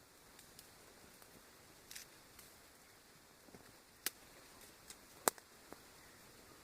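Small fatwood campfire crackling quietly, with a few sharp pops, the loudest two a little over a second apart after about four seconds.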